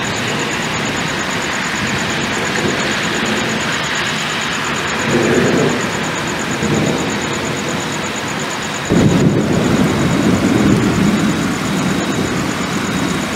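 Thunder rumbling over a steady hiss of rain, with low swells about five and seven seconds in. About nine seconds in, a louder clap of thunder breaks in suddenly and keeps rumbling.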